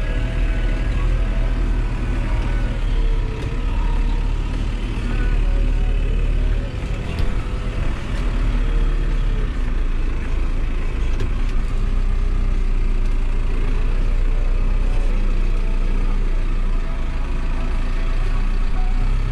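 New Holland tractor's diesel engine running steadily under load, its pitch rising and falling as the revs change while the bales are loaded.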